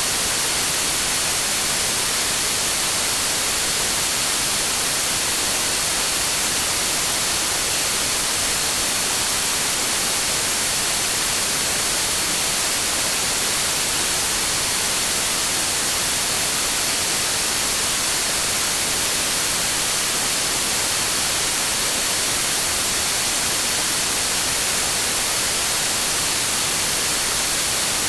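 Continuous generated noise for sleep and tinnitus masking, presented as green noise: an even, unchanging hiss weighted toward the high end, with a faint steady high tone in it.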